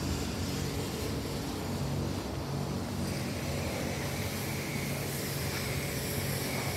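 Steady low hum of car wash machinery running, with a few low steady tones under a noisy hiss.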